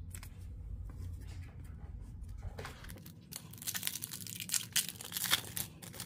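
Foil wrapper of an Upper Deck hockey card pack being torn open, with crinkling and tearing starting about three seconds in and loudest near the end. Before that there is soft rustling as a card is slid into a plastic penny sleeve.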